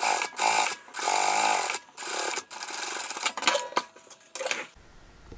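Industrial sewing machine running in a string of short stop-start runs while topstitching along a fabric edge, then falling quiet about a second before the end.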